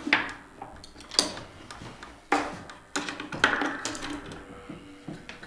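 Wooden and metal parts of a Fox bender, a guitar side-bending machine, knocking and clicking as it is worked by hand. There is a series of sharp knocks, roughly one a second, with lighter clicks between.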